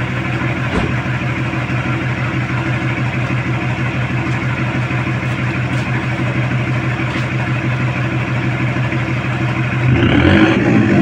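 Toyota HiAce GL Grandia van's straight-piped exhaust idling steadily at the tailpipe with an even, fast pulse, then revved briefly near the end.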